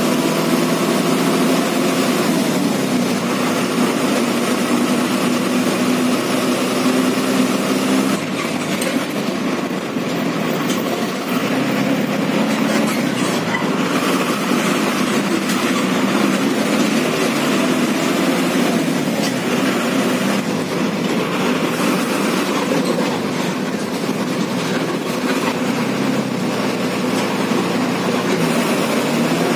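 Diesel engine of an MSRTC bus running, heard from inside the cabin over steady road noise. The engine note and loudness drop about eight seconds in, then the engine note comes back later.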